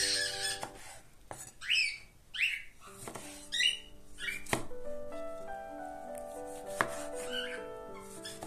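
Chef's knife slicing through tomatoes and knocking on a wooden cutting board: a quick series of cuts through the first half, and one more knock near the end. Soft background music with held, piano-like notes comes in partway and fills the second half.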